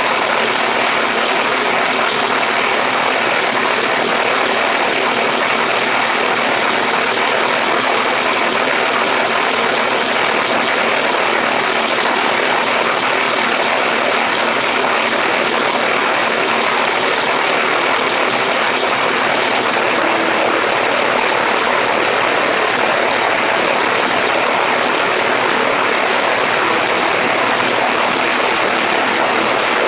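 Steady loud rush of airflow over a camera mounted on a Cessna 172's wing strut, with the diesel engine and propeller droning beneath it.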